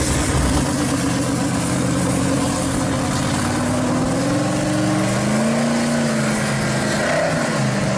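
Supercharged V8 of a blue 1969 Camaro pro street car running as the car drives off. Its pitch climbs and dips several times with the throttle.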